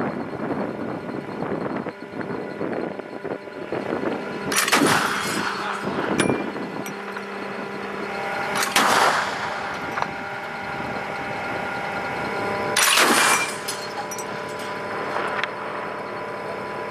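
30 mm chain gun firing on a range: three short bursts about four seconds apart, over a steady mechanical hum.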